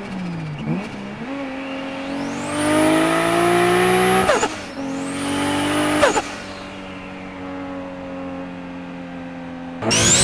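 Turbocharged car engine revving, its turbo whistle climbing in pitch, then a sudden turbo flutter as the throttle snaps shut, about four seconds in and again about six seconds in. This is compressor surge on lift-off. Between and after, the engine runs at a steadier lower pitch, and near the end a new rev with a rising turbo whistle cuts in.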